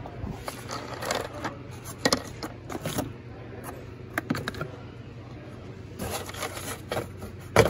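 Metal spud lug nuts clinking and scraping against each other in a cardboard bin as a hand rummages and grabs them, with scattered sharp clinks and one loud clack near the end.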